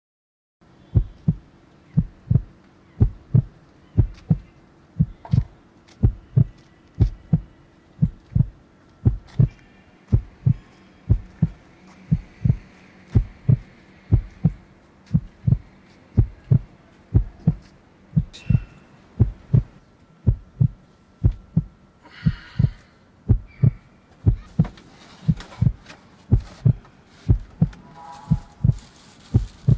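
Heartbeat sound effect: a slow, steady lub-dub of deep double thumps, about one beat a second.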